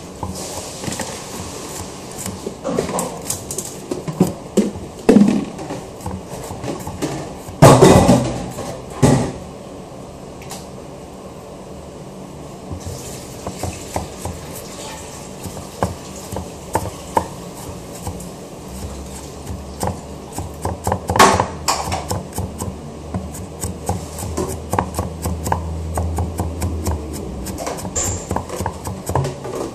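Kitchenware handled at close range: irregular clicks, knocks and clatter, with loud clunks about eight seconds in and again around twenty-one seconds. A steady low hum runs through the middle stretch.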